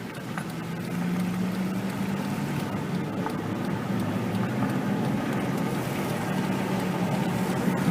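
Car driving, with a steady hum of engine and road noise heard from inside the cabin.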